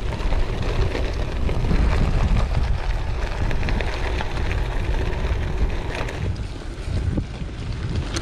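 Wind buffeting an action camera's microphone as a gravel bike rides a rough, loose gravel and sand trail, a steady low rumble. Through it come many small ticks and crackles of grit and stones under the knobbly tyres.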